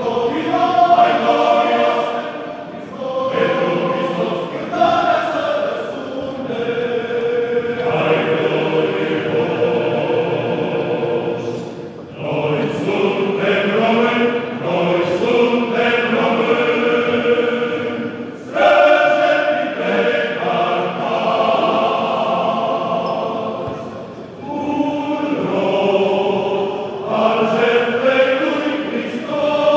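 A men's choir singing in harmony, in long sustained phrases with brief pauses for breath between them.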